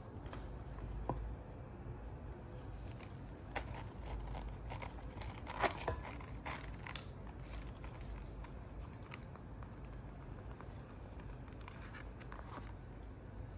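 Handling of a quilted leather zip pouch: scattered soft scrapes, rustles and clicks as it is turned in the hands and its metal zip is pulled open, the loudest scraping a little before halfway. A steady low hum underneath.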